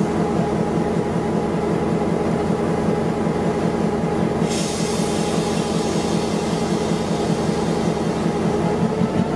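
Diesel locomotive engine idling steadily, a deep, even pulsing throb; a hiss joins about halfway through.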